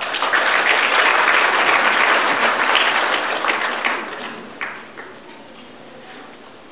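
Audience applauding, loudest for the first three to four seconds, then dying away.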